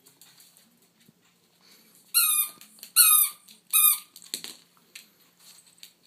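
Squeaky toy squeezed in a poodle's mouth, squeaking three times about a second apart; each squeak is a short pitched squeal that dips slightly at the end. A soft thump follows just after the third squeak.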